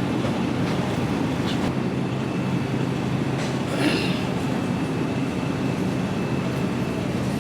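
Steady low rumble with a constant hum and a few light clicks: grocery store background noise.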